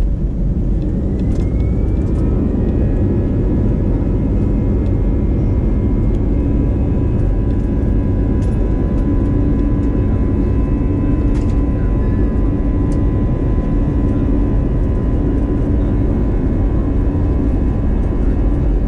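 Jet engines of an Airbus A320 heard inside the cabin: a steady, loud low rumble with a whine that rises in pitch about a second in and then holds steady, as the engines spool up for the takeoff roll.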